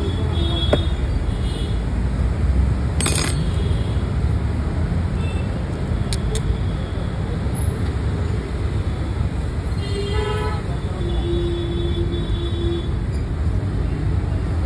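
Street traffic: a steady low rumble of passing vehicles, with vehicle horns sounding about ten seconds in and a lower horn held for a second or two after.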